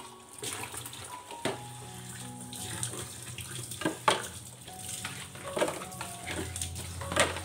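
Kitchen tap running while spice jars and their lids are rinsed, with several knocks and clatters as the jars are set down in a plastic tub, the loudest about four seconds in and near the end.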